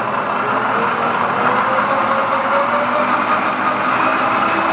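Vectrax 1440EVS electronic variable-speed lathe running, its whine rising steadily in pitch as the spindle speed is turned up with the speed changer. The pitch settles near the end.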